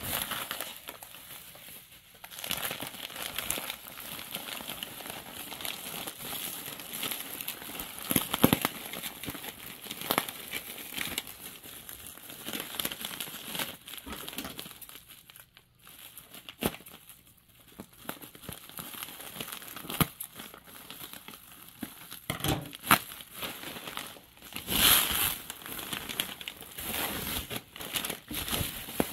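Bubble wrap and a plastic mailer bag crinkling and rustling as a parcel is unwrapped by hand, with sharp crackles that come and go, a quieter pause about halfway and several louder crinkles in the second half.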